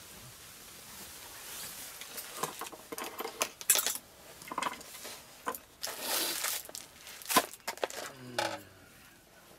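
A scatter of light clinks and knocks of small hard objects being handled, mixed with rustling.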